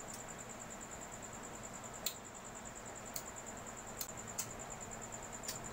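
Cricket trilling steadily, a high, rapidly pulsing note without a break. There are a few sharp clicks, the loudest about two seconds in.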